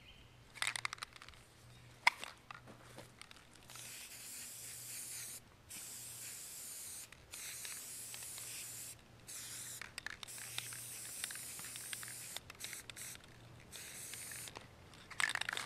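Krylon aerosol spray paint can spraying a base coat in a series of hisses, each one to two seconds long with short breaks between. A few sharp clicks come before the spraying starts.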